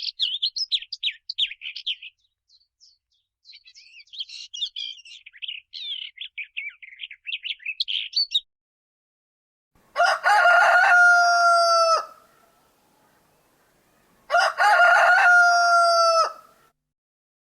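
Sound-effect clips: songbirds chirping in quick high twitters for about eight seconds, then a rooster crowing twice, each crow about two seconds long.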